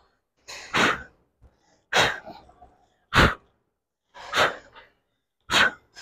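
Short, sharp, forceful exhalations, about one every 1.2 seconds in a steady rhythm: a lifter breathing out hard on each rep of incline dumbbell presses.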